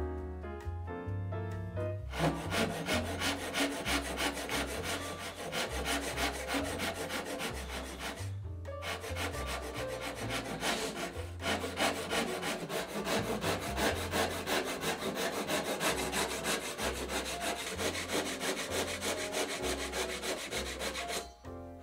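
Japanese pull saw crosscutting cherry: fast, rasping strokes, starting about two seconds in with a short pause near the middle. Background music with a low bass line plays throughout.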